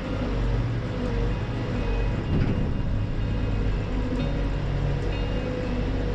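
Volvo lorry's diesel engine running steadily to power the hydraulics of its lorry-mounted Hiab 85 crane during a container lift, with a brief louder bump a little over two seconds in.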